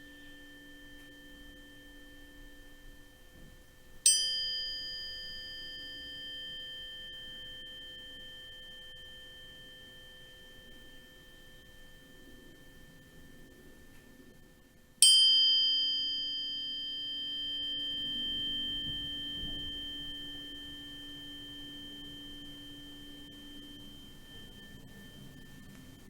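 A struck metal sound-healing instrument rung twice, about eleven seconds apart. Each strike gives a bright, high ringing tone that fades slowly, over a faint steady high tone that hangs on throughout.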